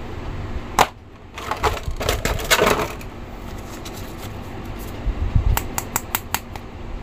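Hard plastic action figures and a clear plastic blister tray handled by hand: a sharp click about a second in, a stretch of plastic crinkling, then a quick run of light clicks near the end.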